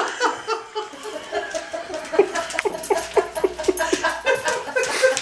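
A woman laughing in a long, steady run of short falling 'ha' sounds, about three a second.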